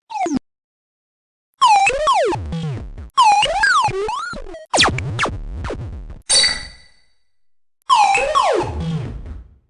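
A string of synthesized motion-graphics sound effects played one after another: a short falling blip, then about five separate effects, each starting sharply and fading over a second or so, with swooping, wobbling pitches. One near the middle is shorter and ends in a ringing high tone.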